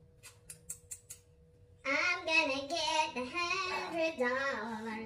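A few light clicks and taps, then about two seconds in a woman's high sing-song voice starts singing or chanting without clear words and carries on.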